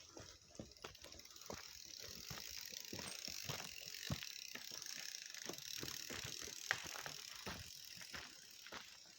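A mountain bike's freewheel hub ticking as a rider coasts past on the rocky trail, with sharp clicks and knocks of the tyres and bike over stones; it grows louder through the middle and fades near the end.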